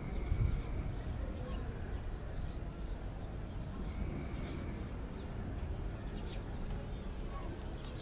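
Cape sparrows chirping: scattered short high chirps, with two brief held whistled notes, over a steady low rumble.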